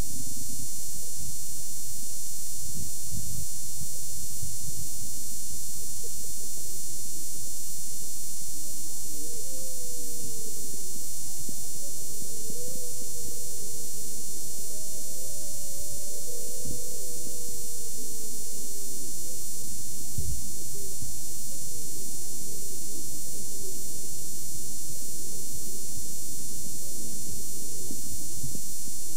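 Heavy hiss, whine and low rumble of an old camcorder recording, with a few low bumps. Faint, muffled voices rise and fall through the middle.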